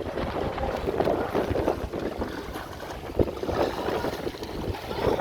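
Wind buffeting the microphone over uneven water and boat noise aboard a fishing boat at sea, with one sharp knock about three seconds in.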